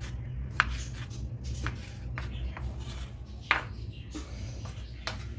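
Kitchen knife dicing tomatoes on a wooden cutting board: irregular knocks of the blade against the board, roughly one a second, over a steady low hum.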